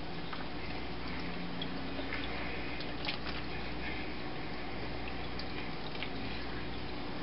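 A kitchen knife working through a pink salmon in a stainless steel sink: faint wet, dripping sounds with a few light clicks, over a steady background hiss.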